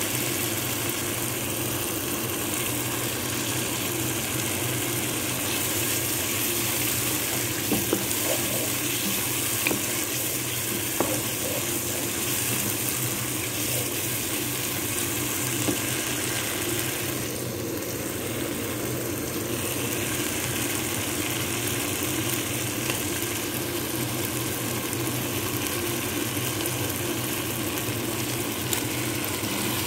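Spiced masala paste frying in oil in a pan, a steady sizzle, with a few clicks of a wooden spatula stirring it about eight to eleven seconds in.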